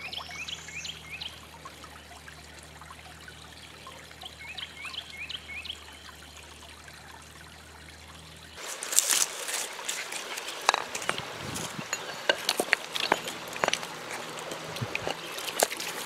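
A thin stream of water trickling and splashing from a spring pipe onto creek rocks, dense and crackly from about halfway in. Before that, a low steady hum with a few short high chirps.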